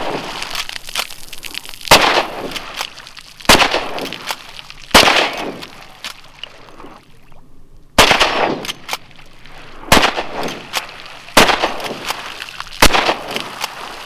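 Seven rifle shots from a lever-action rifle, fired into water, about one every one and a half seconds with a longer pause midway. Each crack is followed by a short ringing tail, with fainter clicks between the shots.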